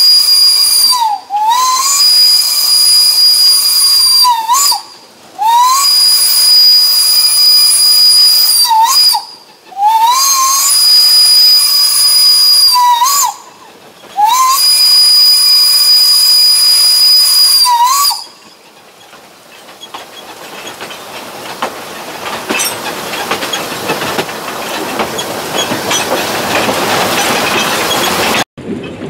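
Steam locomotive whistle sounding a series of long blasts: one ends about a second in, then four more of about three to four seconds each, each swooping up in pitch as it starts. After the last blast, a hiss swells steadily louder.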